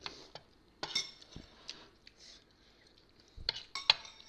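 Metal spoons clinking against dishes: a few separate clinks, one about a second in with a brief ring, then a cluster near the end, the sharpest just before four seconds in.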